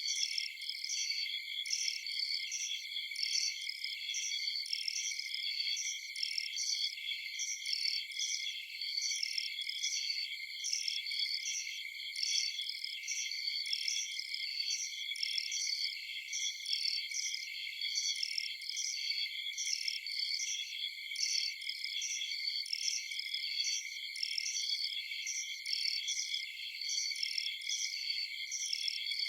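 Crickets chirping in a steady chorus: a continuous high-pitched trill with repeated chirps, several a second, pulsing evenly.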